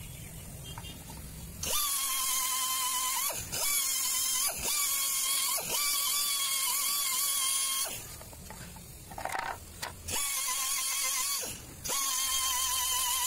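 Air-powered straight die grinder with a round abrasive stone, running with a high whine and a strong air hiss as it buffs the rubber of a motorcycle inner tube around a puncture to prepare it for a hot patch. It starts about two seconds in, and its pitch dips briefly a few times as the stone bears on the rubber. It stops for about two seconds, then runs again in two spells.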